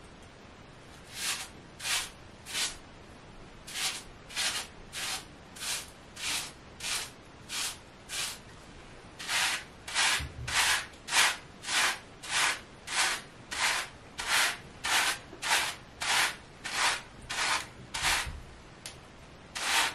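Wave brush bristles stroking through short, shampoo-lathered hair: a steady run of short scraping brush strokes, about one and a half to two a second, coming a little faster and more evenly in the second half.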